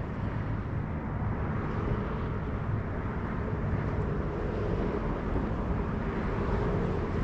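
Steady wind noise rumbling on the microphone over open water.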